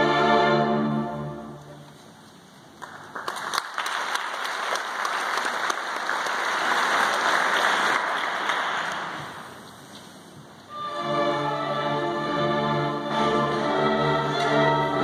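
An orchestra's sustained chord fades out about two seconds in, and after a short pause the audience applauds for several seconds. The applause dies away and the orchestra starts playing again near the end.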